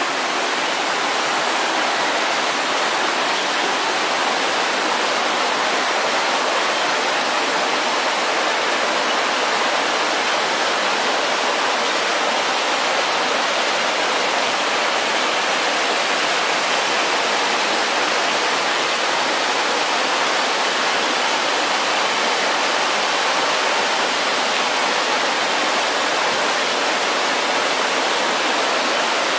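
Small waterfall cascading over rocks into a stream: a loud, steady rush of falling water.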